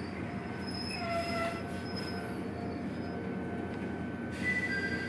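Ichibata Electric Railway train heard from inside the car: a steady low running rumble with thin, high steady squeals from the wheels on the rail, and a brief louder squeal about a second in.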